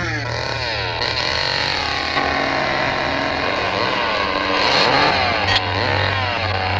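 Chainsaw engine revving over and over, its pitch rising and falling, with one sharp crack about five and a half seconds in.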